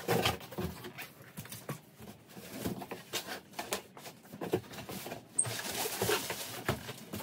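A large cardboard shipping box being opened and handled: the flaps are folded back and an inner product box is lifted out, making an irregular run of cardboard scrapes, rustles and knocks.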